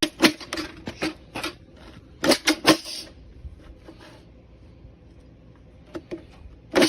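A cutting tool snipping through roofing material, making sharp irregular clicks and snaps. One comes early, three come in quick succession about two seconds in, and two more come near the end.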